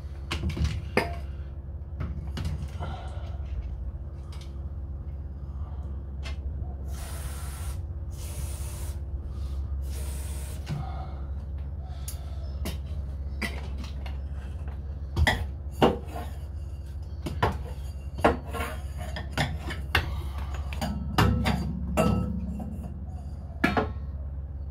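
Hand tools clinking and knocking on metal at the front fender and wheel well of a VW Beetle, in irregular sharp clicks. Three short hisses come a little before the middle, over a steady low hum.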